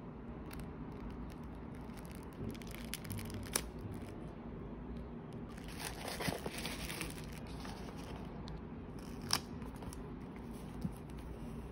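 Handling sounds of a tissue-paper-wrapped package and a cardboard box: a short stretch of paper crinkling about six seconds in, and a few sharp taps and clicks against a low steady hum.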